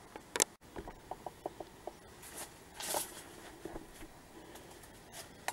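Handling noise as the camera is set up close to the face: a sharp click, then a quick run of about six light ticks and a brief rustle.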